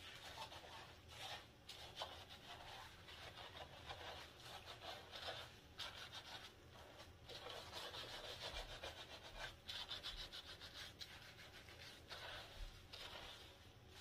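Hands scrubbing shampoo lather through thick, coily hair: a faint, irregular rubbing in short strokes.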